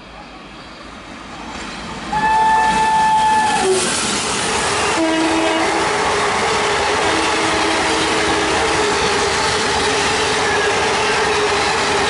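WAP4 electric locomotive horn sounding as the train rushes past at speed: one long high blast about two seconds in, ending in a short downward slide, then a shorter, lower note about five seconds in. After the horn, the steady rush and clickety-clack of the passenger coaches passing at speed continues.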